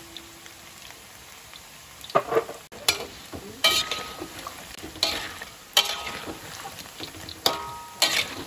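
Breaded noodle nuggets deep-frying in a wok of hot oil, with a steady sizzle. From about two seconds in, a spatula scrapes and knocks against the wok about seven times as it stirs and turns them.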